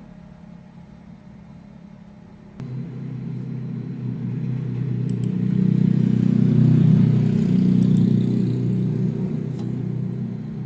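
Stepper motor of a home-built CNC machine driving its X axis: a low, steady hum that starts suddenly about a quarter of the way in, swells to its loudest past the middle, eases a little and cuts off at the end.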